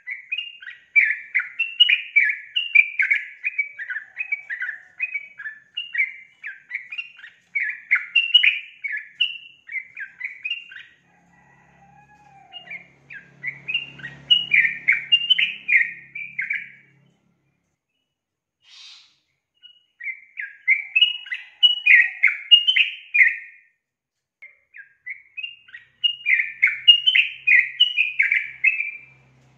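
Female yellow-vented bulbul (trucukan) singing: four bouts of quick, chattering phrases separated by short pauses of a second or two.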